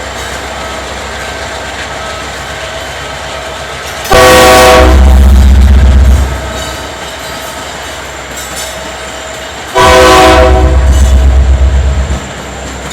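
GE C44ACM freight locomotive sounding its multi-chime air horn: two long blasts of about two seconds each, several seconds apart, over the steady rumble of the moving train.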